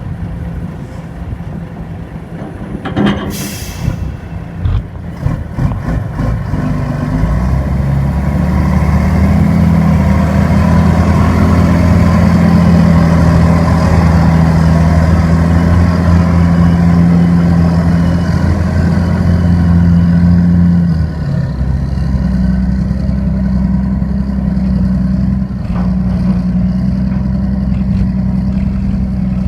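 Heavy diesel engine running. A brief sharp hiss comes about three seconds in, then from about seven seconds a loud, steady, low engine drone that eases slightly after about twenty seconds.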